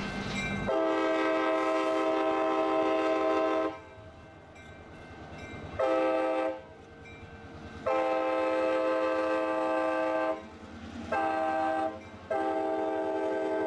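Multi-tone air horn of an EMD FL9 diesel locomotive, sounded as it passes in five blasts: long, short, long, short, and a last long one that is still sounding at the end.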